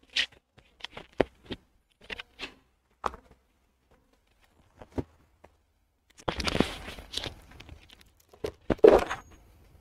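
Footsteps and clothing rustle from a person moving about while wearing a clip-on microphone: scattered light knocks, a longer rustle about six seconds in, and louder thumps near the end.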